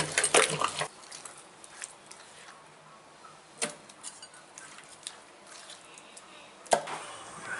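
Wet masala paste squishing and scraping under the grinding stone of a traditional stone wet grinder (aattukal) for about the first second. Then quiet handling of the paste, with small clicks and two sharp knocks, the louder one near the end.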